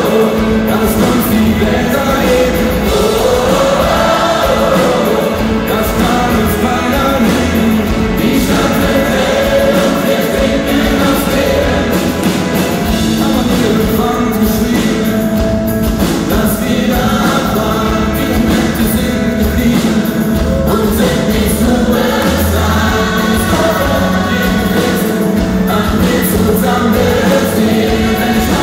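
A large gospel choir singing with a live rock band of electric guitars, keyboards and drums.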